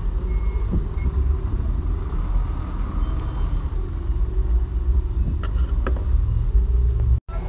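Steady low rumble of a vehicle engine running, with a few light clicks near the end.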